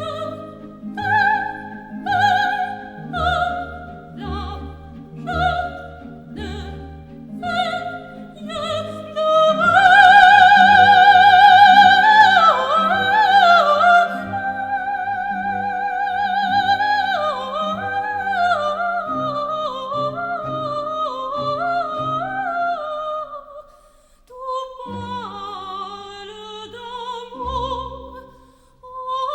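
Operatic soprano singing a coloratura passage over an orchestra: a run of short detached notes, then a loud, long high note with vibrato about ten seconds in, followed by winding descending runs.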